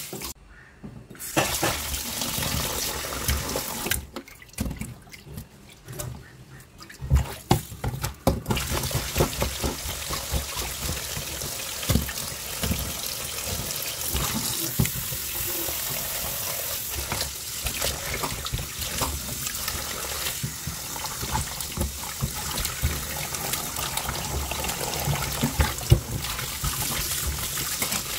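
Tap water running into a sink while pieces of fish are washed by hand in a vessel, with small knocks of the pieces and vessel. The flow stops briefly near the start and again for a few seconds around four seconds in, then runs steadily.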